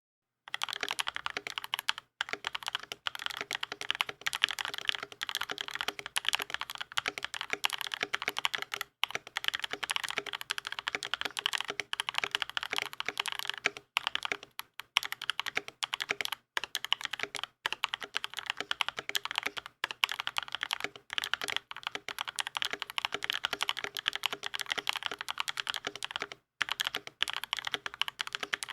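Continuous fast typing on an Idobao 87 V2 tenkeyless mechanical keyboard with lubed Darling switches and PE foam inside, a rapid stream of keystroke clicks with a few brief pauses.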